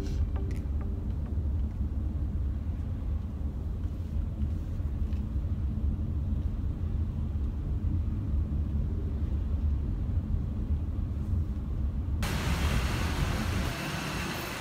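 Steady low rumble of a car's road and engine noise heard inside the cabin while driving. About twelve seconds in it changes abruptly to a brighter, hissy city street background.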